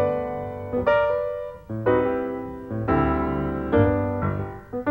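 Piano music playing a slow tune, with chords struck about once a second and left to ring and fade.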